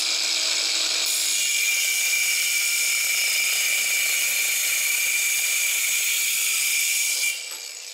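Angle grinder with a Diablo wide-tooth circular saw blade cutting through quarter-inch aluminum angle: a loud, steady high whine with the rasp of the teeth biting the metal. About seven seconds in the cut ends and the grinder spins down, fading away.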